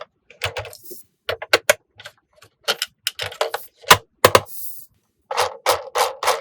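Sharp plastic clicks and taps from handling a toy and its packaging, with two brief crinkly rustles. From about five seconds in, the clicks come quicker and more evenly, about three a second.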